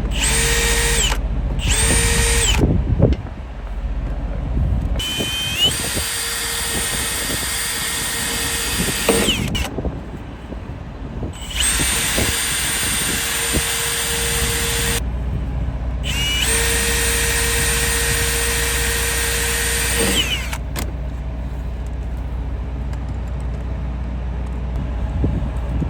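Power drill with a 5/32-inch bit pre-drilling holes in the metal frame of a reefer unit. There are two short bursts, then three longer runs of about four seconds each, with a steady motor whine. A steady low rumble runs underneath.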